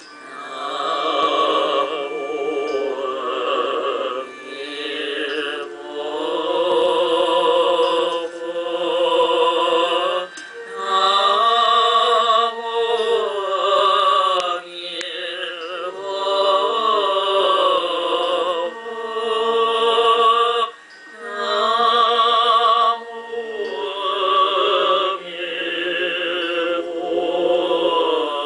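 Music: a singing voice holding long, wavering notes with vibrato in phrases of a few seconds, like a slow devotional chant.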